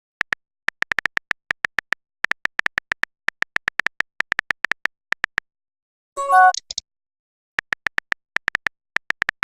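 Phone touch-keyboard key clicks from typing out text messages: quick runs of short, identical high ticks with short pauses between words. About six seconds in, a single short chime breaks the typing.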